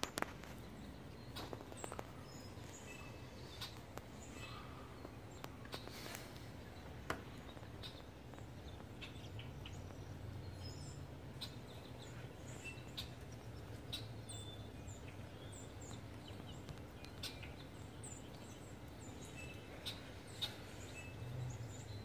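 Small birds chirping and calling in short scattered notes over a steady low background rumble, with a few sharp clicks.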